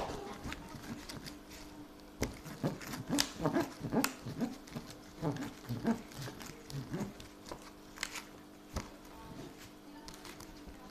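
A spoon stirring thick, sticky slime in a bowl: wet squelches and smacks mixed with sharp clicks of the spoon against the bowl, busiest in the first half and thinning out later. The mix is stiffening as saline activator is worked in.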